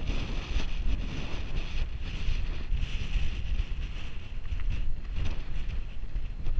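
Wind buffeting the microphone of a moving camera: a continuous low rumble that swells and dips in gusts, with a steady hiss on top.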